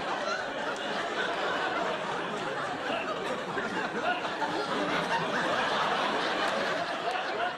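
Sitcom studio audience laughing at a punchline, a long laugh that holds at a steady level.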